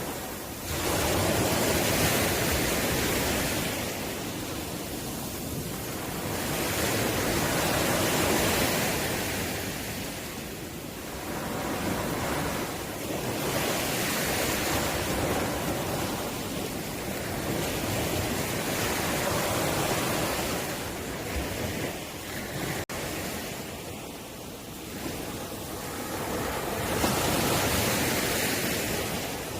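Ocean waves breaking and washing up the shore, swelling and falling back every several seconds.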